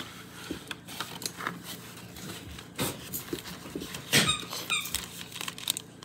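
A dog's squeaky toy squeaking a few times as the dog plays with it, amid rustling and crinkling of snack wrappers and a cardboard box being handled.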